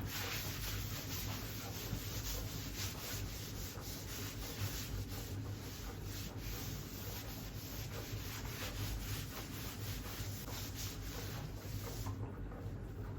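Steady scrubbing against a hard surface, rubbing back and forth without a break, stopping about a second before the end.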